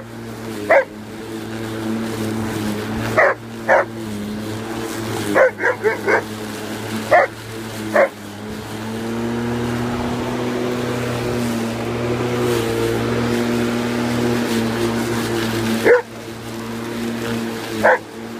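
Alaskan malamute barking at a running lawn mower: about a dozen short barks, bunched in the first eight seconds with a quick run of four, then two more near the end, over the mower's steady motor hum.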